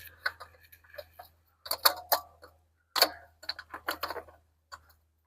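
Irregular sharp clicks and knocks in small clusters, a new spin-on oil filter and hands working on its mount as the filter is fitted by hand.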